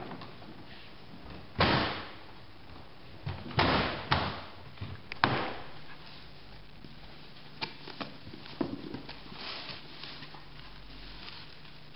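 Hollow plastic side walls of a collapsible plastic pallet box knocking and clacking into place, four loud knocks in the first five or so seconds. Later come lighter clicks and soft rustling as cardboard box flaps are pulled open and bubble wrap is handled.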